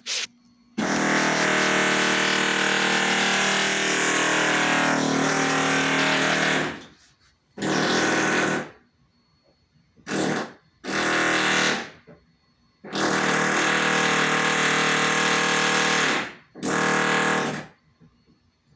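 Loud buzzing drone with a steady pitched hum, in six bursts that start and stop abruptly, the longest about six seconds, with near silence between them.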